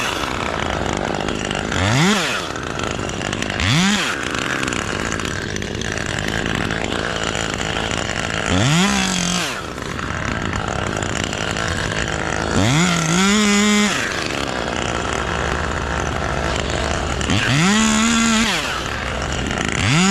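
Gasoline chainsaw running: it is revved up to full throttle about six times, held briefly at high speed around halfway through and near the end, and drops back to a lower run between revs.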